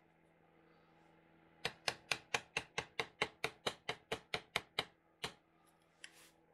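Mallet tapping a 6 mm V-tool carving chisel into limewood: a quick, even run of sharp taps, about four a second, starting a second and a half in and ending with one last tap near the end.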